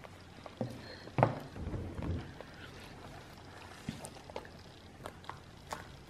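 Scattered small clicks, smacks and taps of a toddler eating a large croissant at a plastic high-chair tray, with a thump, the loudest sound, about a second in.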